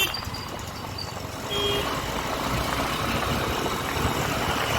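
Honda SP125's single-cylinder engine and wind noise while riding on the road, the sound swelling about one and a half seconds in, with a short beep there.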